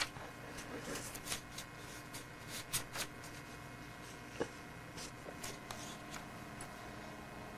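Newspaper crinkling and rustling in short, irregular crackles as a baby's hand paws and scratches at the sheet.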